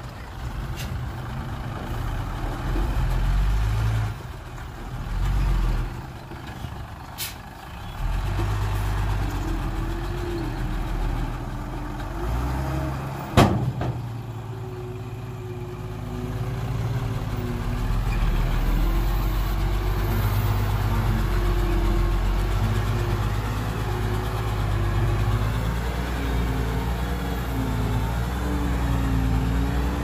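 Diesel dump truck engine running as the truck unloads soil and then moves off, its engine note wavering up and down. A single sharp bang about 13 seconds in stands out above the engine.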